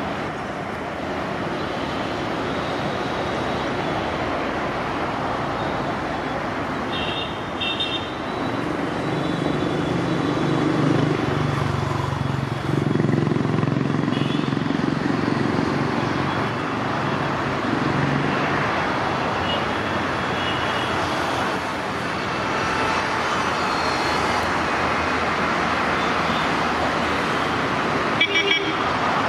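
ALCo diesel-electric locomotive running with a train, its engine drone growing louder as it approaches and strongest in the middle. A short horn toot sounds near the end.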